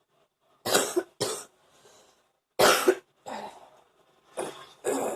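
A woman's wet, chesty cough: about six hard coughs in short fits, two together about a second in, the loudest near the middle and two more near the end. It is a productive cough, bringing up morning phlegm.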